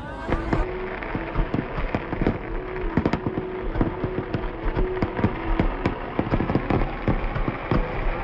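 Fireworks barrage: many shells bursting in quick succession, several bangs a second over a continuous crackling.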